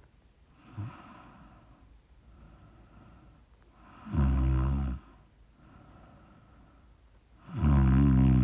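A woman snoring in her sleep: two loud snores about three and a half seconds apart, with a fainter snore about a second in and soft breathing between.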